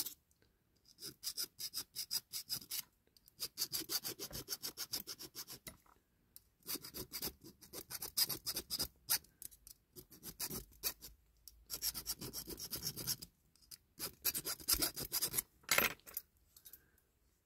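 Small hand file rasping on a diecast zinc-alloy toy ladder mount, to open up clearance at the elbows. It goes in quick, short back-and-forth strokes, in several runs with brief pauses between them, and one sharper stroke comes near the end.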